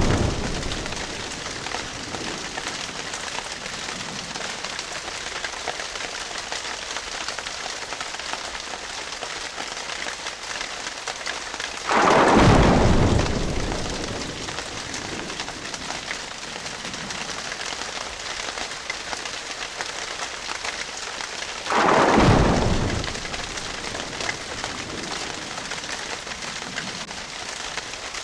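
Breaking waves: a steady hiss of churning, foaming water, with a heavy crash as a wave breaks at the start, again about twelve seconds in, and again about ten seconds later, each fading over a second or two.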